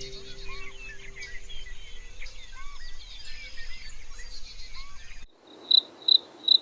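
A dense chorus of high, quick chirps and twitters. After a cut about five seconds in, a cricket chirps in regular pulses, a few a second.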